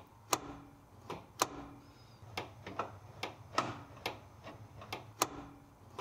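Chevrolet Vega's hood release mechanism being worked over and over to test a newly fitted release cable. It gives about a dozen sharp clicks at uneven spacing, several followed by a brief low ring from the springing latch parts.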